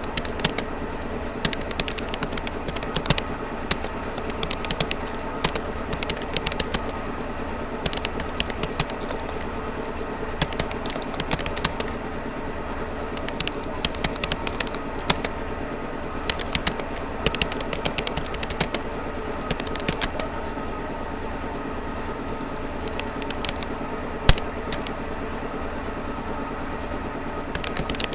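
Typing on a Rapoo computer keyboard: quick, irregular key clicks with short pauses and one louder key strike near the end, over a steady background hum.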